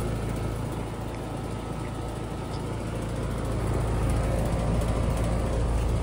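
2019 4-ton American Standard Silver 13 central air conditioner condensing unit running: a steady compressor hum under the rush of air from its condenser fan.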